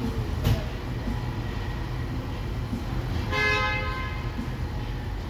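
2021 Nissan Sentra engine idling with a steady low rumble while a scan-tool relearn procedure runs. A brief click about half a second in, and a short beep a little over three seconds in.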